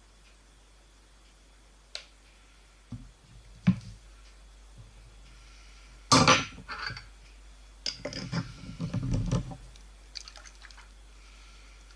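Kitchen handling on a table: a few clicks of a metal spoon, a loud clatter about six seconds in as things are put down, then a screw-cap lid scraping and knocking as it is twisted onto a small glass jar.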